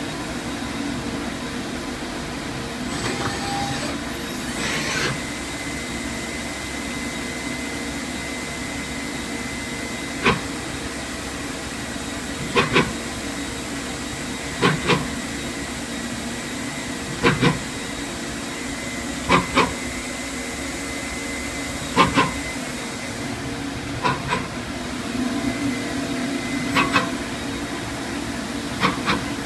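Lead screw of a running machine making an abnormal noise. Over a steady hum, sharp knocks start about ten seconds in and come roughly every two seconds, mostly in quick pairs. It sounds like a failed lead screw.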